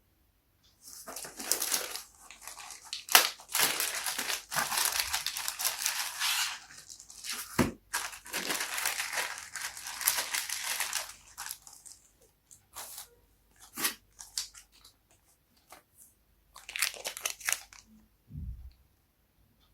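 Packaging being torn and crinkled open by hand, in two long rustling stretches, followed by scattered clicks and knocks.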